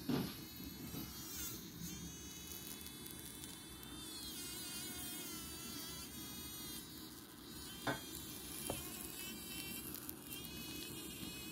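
A hoverfly caught in a spider's web buzzing its wings in repeated bursts of a second or more, the high buzz wavering in pitch as it struggles in the web. Two short knocks about two-thirds of the way through.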